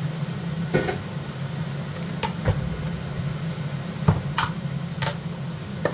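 Chicken thighs sizzling in a frying pan over a steady low hum. About six short clicks and knocks come from a tin of black beans and a bowl with a metal strainer being handled on the worktop, two of the sharpest near the end.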